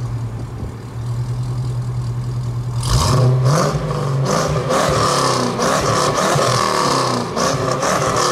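A 6.0-litre LQ4 V8 running through Pypes StreetPro mufflers and rear-exit exhaust pipes. It runs at a steady note, then is revved about three seconds in and keeps running louder and higher, with the pitch wavering.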